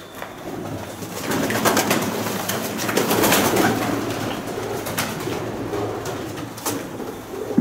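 Pigeons cooing, with scattered clicks and crunches of footsteps on a debris-strewn floor.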